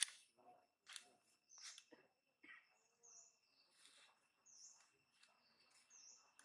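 Faint outdoor ambience of birds chirping: a few short, high chirps spaced a second or more apart, over a faint steady high tone and scattered soft clicks.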